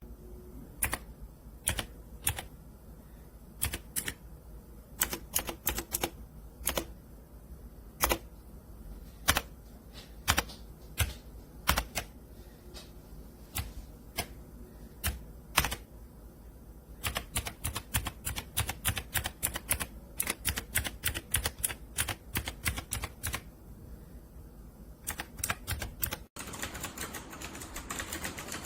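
Keystrokes on a Dierya T68SE 60% mechanical keyboard with red switches: separate clacks at first, then a quicker run of typing about two-thirds through, ending in an abrupt cut.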